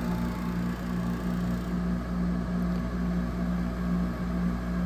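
2008 Frigidaire 6,500 BTU window air conditioner (FAA074S7A) running with its compressor on: a steady hum with several held low tones over the rush of the fan. The front panel is vibrating, adding to a noisy unit that its owner says barely cools and suspects is low on charge or restricted in the evaporator.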